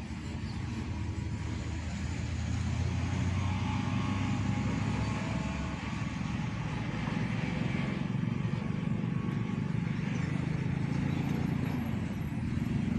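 Road traffic passing close by: a steady low rumble of heavy vehicle engines that swells and eases as vehicles go past.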